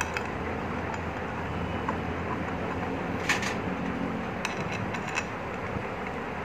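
Small metal clicks and taps as bolts are set into the bolt holes around the aluminium cover of an LPG reducer, a sharper click about three seconds in and a few lighter ones a second or two later, over a steady background hum.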